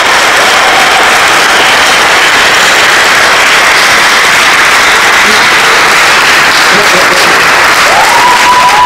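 A church congregation applauding steadily in a long, dense round of clapping. Near the end a high held tone, like a whistle or a cheer, rises over the clapping.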